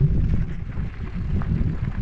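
Wind buffeting the microphone while a mountain bike rolls along a dirt track, with a low rumble of tyres on dirt and small scattered rattles.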